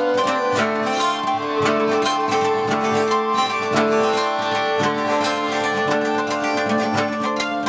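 Violin bowed in an improvised melody, its long notes held over a busy plucked-string accompaniment of rapid, rhythmic strokes.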